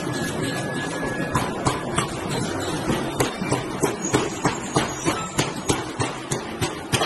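Ring rolling machine working a red-hot steel ring: a steady machinery noise with repeated metallic knocks, coming faster and sharper from about halfway through, about three a second.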